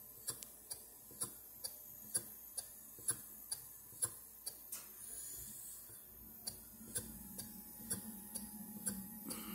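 PM Research No. 4 vertical live steam engine running slowly on low steam pressure, about 4 psi, making a light, regular click about twice a second.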